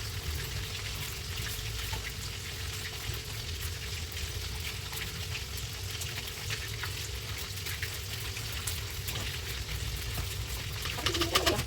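Food frying in a hot pan, a steady sizzle with scattered crackles that grow denser and louder near the end.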